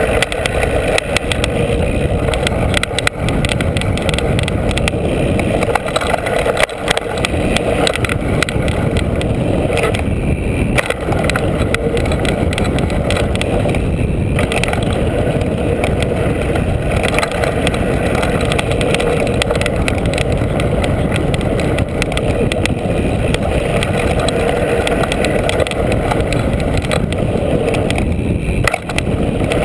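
Mountain bike riding fast down a dirt trail, heard from a camera mounted over the front wheel: a steady rush of wind and tyre noise with constant clattering and rattling of the bike over bumps.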